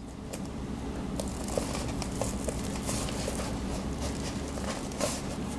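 Faint small clicks and rustling as a bag's zipper and its new string pull are handled, over a steady low hum.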